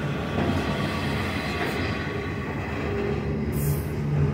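Double-stack intermodal freight cars rolling slowly past: a steady rumble of steel wheels on the rails, with a low hum that strengthens near the end and a brief high hiss a little after three and a half seconds in.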